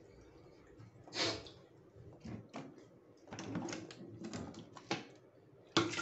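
Plastic water bottle being handled, with a run of crinkles and clicks and one sharp click. Near the end, a sudden steady rush starts, the sound of water beginning to pour.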